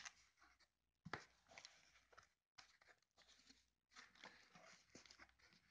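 Faint rustling and scraping of cardboard box flaps and foam packing being handled and opened by hand: a string of short, soft scrapes and clicks.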